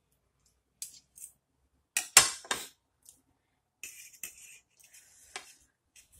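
Metal knife and fork clinking and scraping against a plate while cutting food. A quick run of three sharp clinks about two seconds in is the loudest part, followed by scraping and a few lighter taps.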